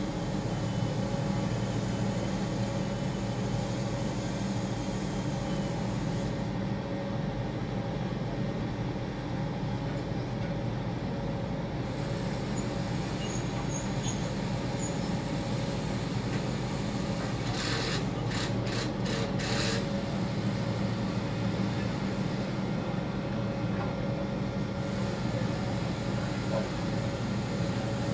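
Steady low mechanical hum of a tower crane's machinery with a thin steady whine, heard from inside the operator's cab. A short run of quick clicks comes about two-thirds of the way through.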